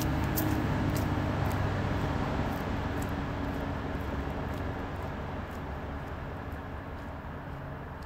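A low, steady rumble of a passing vehicle with a faint hum running through it, slowly fading away.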